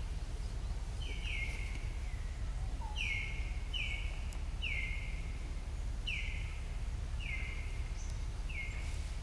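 A bird calling over and over, about once a second: each call is a short whistled note that slides down and then holds briefly. Under it runs a steady low outdoor rumble.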